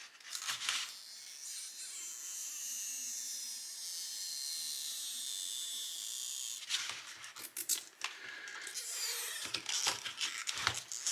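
Stretch-release adhesive strip under an iPhone 6s battery being slowly pulled out: a steady high-pitched hissing whine lasting about five seconds, its pitch slowly falling. Several sharp clicks and taps of handling follow near the end.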